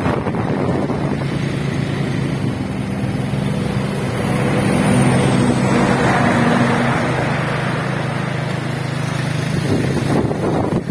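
A motor running steadily with a low hum, under rushing wind noise.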